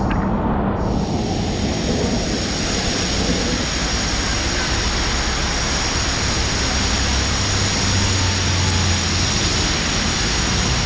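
Heavy rain pouring steadily on a flooded street, a dense, even hiss, with vehicles driving through the water. A passing vehicle's engine drones low for a couple of seconds about three-quarters of the way through.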